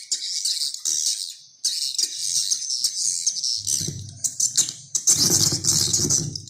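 A recorded bird lure call: dense, high-pitched chirping and twittering in quick pulses. A low hum joins about three and a half seconds in.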